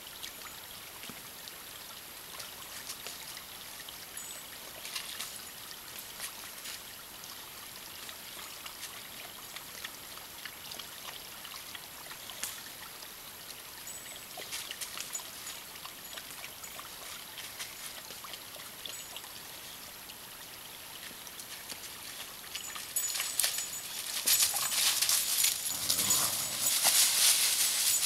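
Small forest stream trickling steadily. Near the end, louder rustling and crunching of dry fallen leaves as feet move through them.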